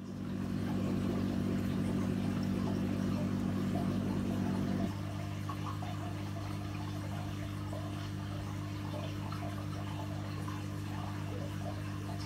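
Aquarium equipment humming steadily, with water moving in the tank. The hum's tone shifts and drops a little about five seconds in.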